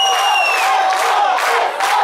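Bhangra music with a fast, steady drum beat, overlaid by loud group shouts and whoops from the dancers and a high held note at the start.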